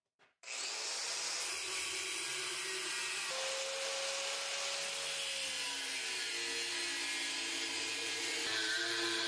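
Angle grinder grinding a forged steel bar held in a bench vise. It starts about half a second in and runs steadily, and its motor whine changes pitch about six seconds in and again near the end as the disc is pressed into the steel.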